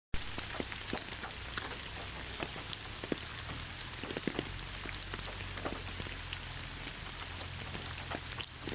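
Steady rain falling, with a constant hiss and many separate drops ticking sharply on a hard surface.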